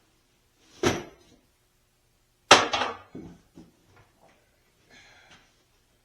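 Two loud knocks about a second and a half apart, the second trailing into a short clatter, then a few lighter knocks and a faint scrape: pieces of wood or tools being handled and set down during a hutch build.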